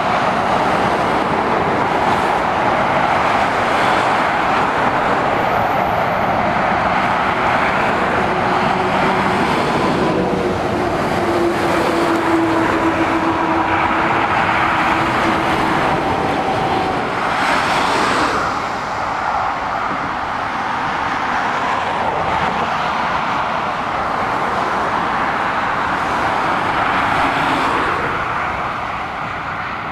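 Steady motorway traffic: tyre roar and engines of lorries and cars passing below. A low steady hum runs through the middle stretch, and one vehicle passes louder about eighteen seconds in.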